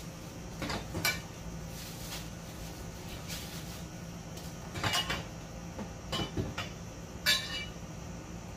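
Metal and plastic parts of a table knocking and clinking as it is assembled by hand, with a few short clatters, the loudest near the end. A steady low hum runs underneath.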